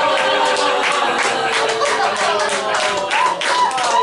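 Audience applauding, with laughter and cheering voices over the dense clapping.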